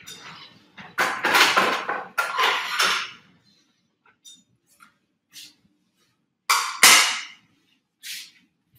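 Dishes and kitchen utensils clattering in two loud spells, a longer one starting about a second in and a shorter one about two-thirds of the way through, with a few faint knocks between.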